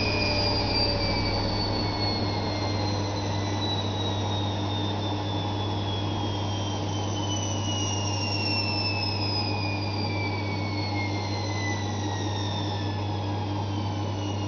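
Zanussi ZWF 1621 W washing machine slowing down from its 1600 rpm spin: the motor's high whine falls steadily in pitch over a constant low hum.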